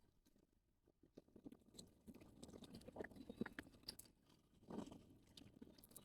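Near silence with faint, scattered rustles and small crackling clicks, a little busier in the middle.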